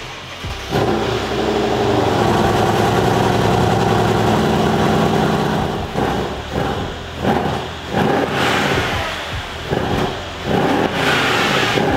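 Mercedes-AMG E63's twin-turbo V8 on its stock exhaust, starting up about a second in and holding a steady, loud idle, then revved in a series of short throttle blips in the second half.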